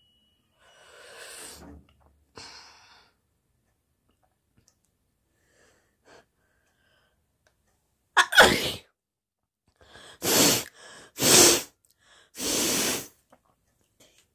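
Faint breathing at first, then a woman sneezing hard about eight seconds in, followed by three more sharp bursts, the last one longer.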